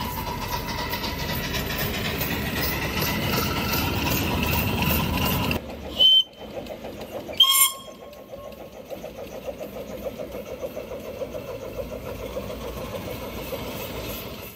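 Steam locomotive running, with a steady tone and slowly rising whines over its noise. After a break come two short whistle toots about a second and a half apart, then a quieter, rapid, regular beat of exhaust chuffs.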